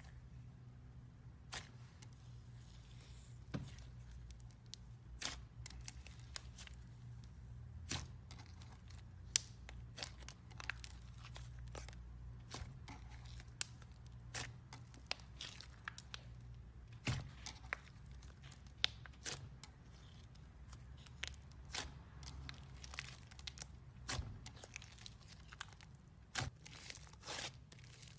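Slime being played with by hand, giving irregular crackles and pops, over a faint steady low hum.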